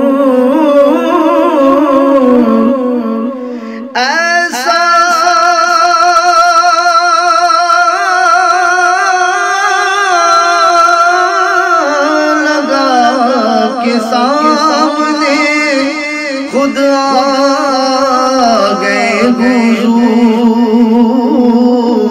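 A man's voice singing a naat, a long wordless passage of drawn-out notes that waver in pitch. A new held phrase comes in sharply about four seconds in.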